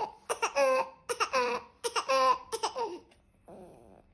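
A baby's pretend cough: about four high-pitched, laugh-like voiced bursts in quick succession, then a fainter breathy one near the end.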